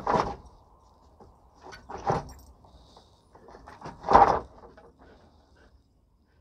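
Belgian Malinois rummaging among a stack of loose wooden boards while hunting a lizard: three short scuffling bursts about two seconds apart, the loudest about four seconds in, with lighter scrabbling between them.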